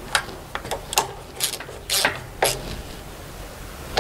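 Hand ratchet clicking in short, irregular bursts as the carburetor flange nuts are tightened by hand.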